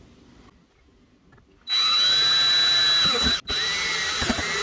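Cordless drill boring a rivet hole through an aluminum hinge plate into the plastic storage lid. It starts nearly two seconds in and runs steadily for almost two seconds, stops briefly, then runs again for about a second more.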